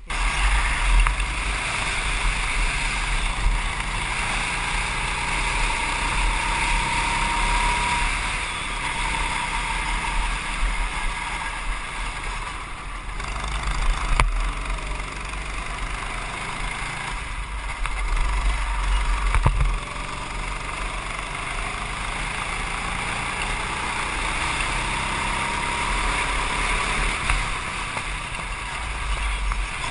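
Go-kart engine running at speed, heard from a camera riding on the kart, its pitch climbing as it accelerates out of corners, about six seconds in and again near the end, over a steady low rumble.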